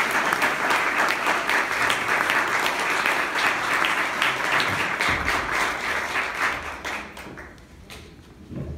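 Audience applauding, the claps dying away about seven seconds in. A dull thump comes near the end.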